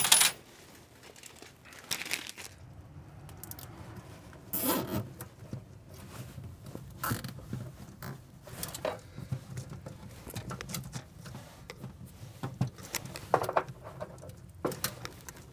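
Irregular scrapes, rustles and short zipping sounds of hands fastening a zip tie around a part wrapped in soundproofing mat, over a low steady hum.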